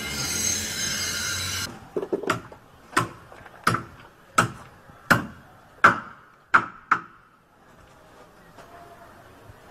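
Wooden boards knocking: a quick triple knock about two seconds in, then seven more sharp knocks at a steady pace of about three every two seconds. They follow a loud hiss that cuts off suddenly.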